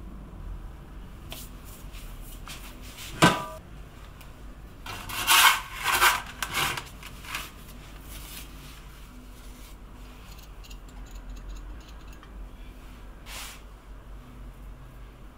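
A perforated metal pizza peel knocks once onto a wooden board about three seconds in, with a brief metallic ring. It then scrapes across the board for a couple of seconds as it is slid under the pizza. Light rubbing and handling noise follows as toppings are placed.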